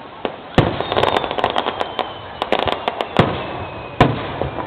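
Aerial fireworks shells bursting: a series of sharp booms, the strongest about half a second in and others near three and four seconds, with rapid crackling between them.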